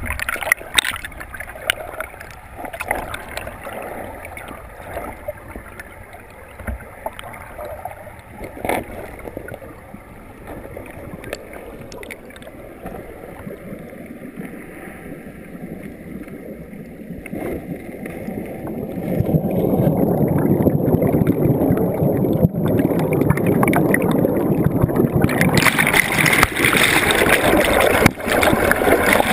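Stream water rushing and bubbling, heard from under the surface through a GoPro's waterproof housing, with scattered clicks. Muffled at first, it grows louder about two-thirds of the way through and turns brighter and hissier near the end as the camera nears churning whitewater.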